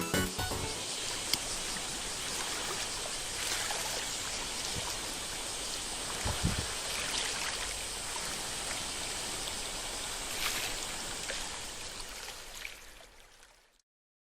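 Steady rush and slosh of seawater, with a couple of faint knocks, fading out near the end.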